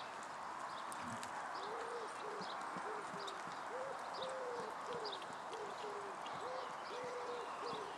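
A dove cooing: short, low hooting notes about twice a second, starting about a second and a half in, over a steady hiss of background noise.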